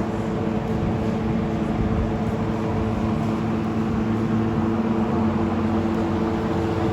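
An engine running steadily at a constant speed, a continuous hum over a rough rumble.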